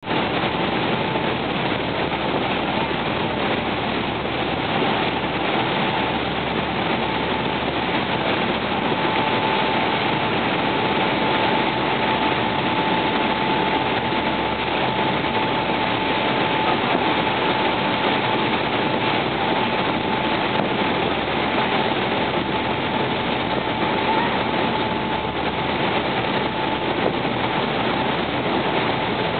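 A boat under way: its engine running steadily, mixed with the rush of wind and water, and a thin steady whine over it.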